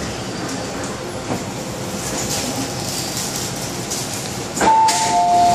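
MTR M-Train car rumbling as it draws to a stop at the platform. About four and a half seconds in comes a click, then the two-note door chime, a high note followed by a lower one, repeated as the doors open.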